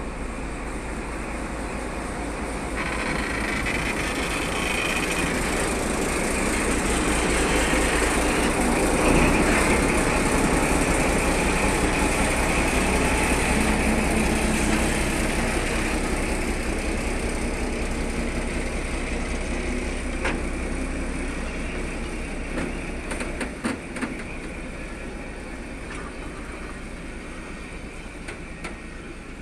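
Coupled TGM4 and TGM6A diesel shunting locomotives running as they roll slowly past. The engine noise swells to a peak about ten seconds in, then fades away. A few sharp clicks come later on.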